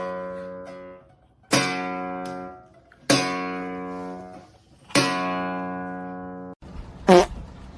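Acoustic guitar strummed, four single chords each left to ring and die away. It cuts off near the end, followed by a short loud cry.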